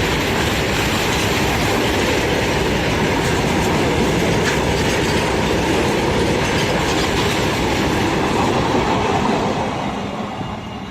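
A train passing close by, with a steady noise of wheels running on the rails that begins to die away near the end.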